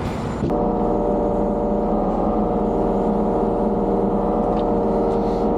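Diesel engine of a compact construction machine running at a steady speed, its pitch holding even throughout.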